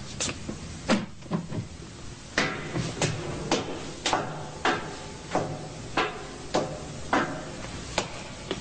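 Footsteps coming down a metal staircase: about ten even steps a little over half a second apart, each a sharp knock with a short metallic ring. A few knocks come before them near the start.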